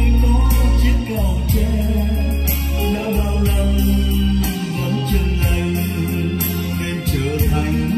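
A Vietnamese song played back through a hi-fi chain of a Yamaha Q2031A graphic equalizer and an Altec Lansing power amplifier: a singing voice over deep, held bass notes and steady ticking cymbals.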